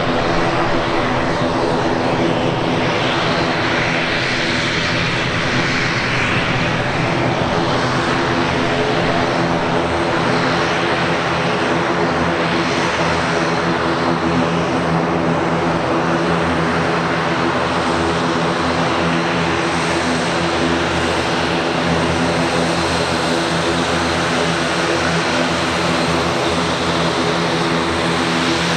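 ATR 42-500's two Pratt & Whitney PW127E turboprop engines and six-bladed propellers running at taxi power: a steady propeller drone made of several held tones, with a hiss over it, at a constant level as the airliner taxis.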